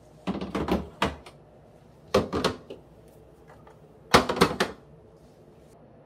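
A hard plastic VAKUEN vacuum food container being set onto a refrigerator shelf and pushed into place: three short clusters of knocks and clatters, about two seconds apart.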